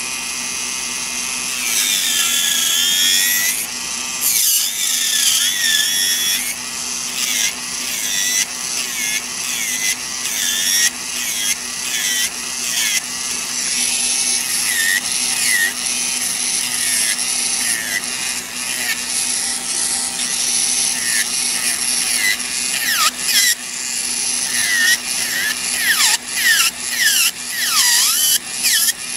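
Electric nail drill with a coarse barrel bit filing down an artificial nail: a steady motor hum under a gritty grinding that comes and goes in short passes, with brief squeals as the bit drags on the nail, more of them in the second half.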